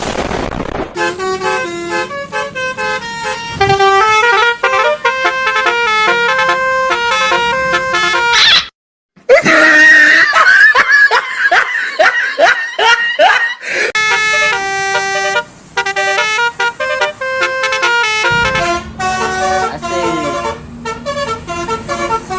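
Bus telolet basuri horn, a multi-tone musical air horn, playing a tune in short stepped notes. It cuts out briefly about nine seconds in, comes back for a few seconds as sliding, wavering notes, then steps through the tune again.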